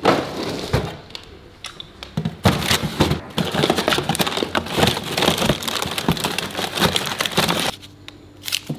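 Rummaging through a freezer drawer: frozen plastic bags and packets crinkle, rustle and clack against each other in a dense run from about two seconds in until near the end, after a knock at the start.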